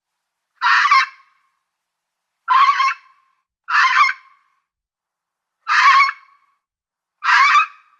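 Fox giving five harsh, raspy calls, each about half a second long, spaced irregularly a second or two apart.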